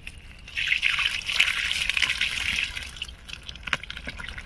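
Water poured from a plastic bucket with live koi (climbing perch) into a woven bamboo basket, gushing and draining through the weave. After about three seconds it thins to scattered drips and light taps.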